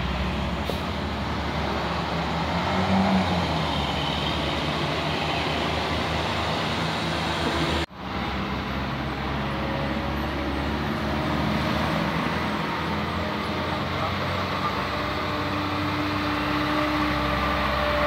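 Tour buses' diesel engines running as they drive past on a road, a steady low engine drone mixed with road noise. The sound drops out briefly about eight seconds in, then another bus is heard passing.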